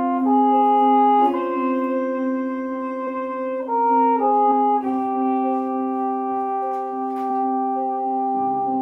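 Trumpet playing a slow melody, moving through a few notes and then holding one long note from about five seconds in, over a steady lower accompanying note.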